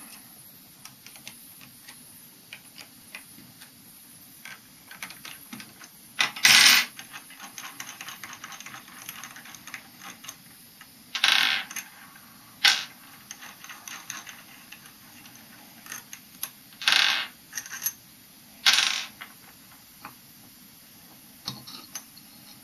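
A hex key working the screws out of a small aluminium turbine housing, with light metal ticking and scraping. About five sharper metallic clinks stand out, as small metal parts are handled and set down on a stone worktop.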